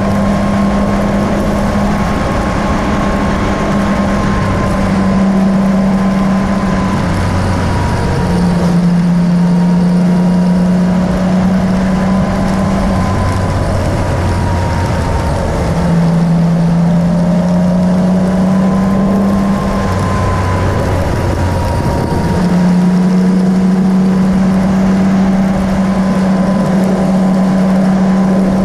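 Engine of the vehicle carrying the camera, running steadily at road speed over constant wind and road rush. The engine note drops lower three times for a few seconds as the throttle eases, then picks up again.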